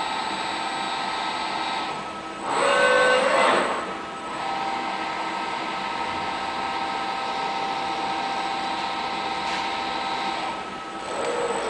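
Fanuc industrial robot arm's servo drives whining, a steady hum of several tones as the arm moves a tyre, with a louder whine about two and a half seconds in that lasts about a second as the arm makes a fast move.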